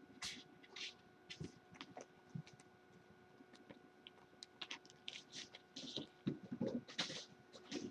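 A kitten's claws scratching and scrabbling on a carpeted cat tree as it climbs, in scattered short rustles and taps that get busier near the end. A faint steady hum lies underneath.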